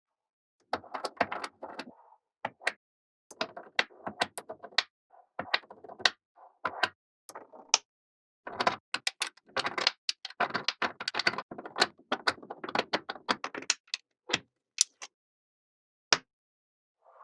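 Small magnetic balls clicking and snapping against each other in quick runs of sharp clicks, broken by short pauses, as they are fitted together. The runs are densest in the middle and thin to a few single clicks near the end.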